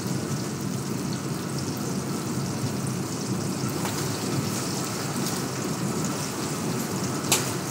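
Chicken pieces sizzling in hot oil in a sauté pan as they brown, a steady crackling hiss like light rain. A single short click comes near the end.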